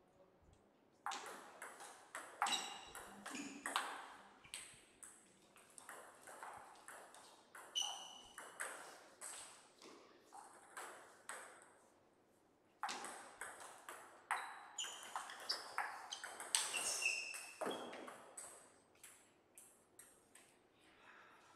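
Table tennis ball being hit back and forth in two rallies: quick sharp clicks of the celluloid-plastic ball on the rubber bats and on the table. There are a few short squeaks among the clicks and a brief quiet gap between the two rallies, about midway.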